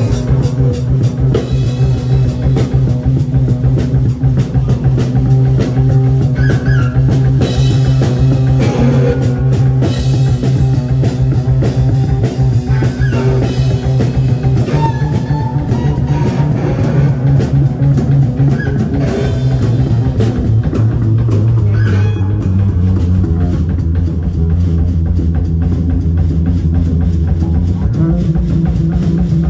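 Live rock band playing loud: electric guitars over a steady bass line and a full drum kit. The bass note drops lower about two-thirds of the way through and climbs higher near the end.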